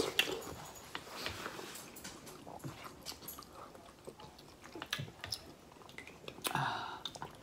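Two people eating chicken vegetable soup with crackers: soft chewing and mouth sounds with scattered small clicks, and a louder burst about six and a half seconds in.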